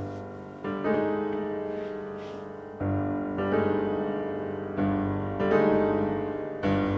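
Slow solo piano music: chords struck every second or so and left to ring out and fade before the next.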